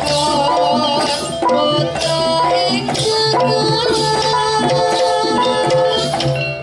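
Live Javanese campursari music played for jaranan: kendang hand drums beating a busy rhythm under held melodic notes from the band, without a break.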